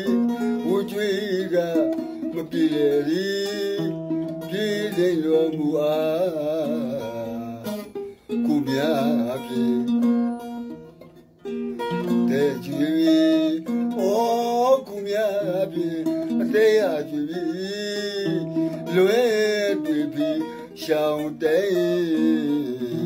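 A man singing a Burmese song with vibrato over plucked-string accompaniment. The music dips briefly twice near the middle.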